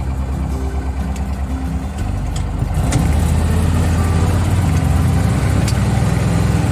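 A vehicle's engine running as it drives along a ranch track, getting louder about two seconds in as it speeds up, with a few brief knocks.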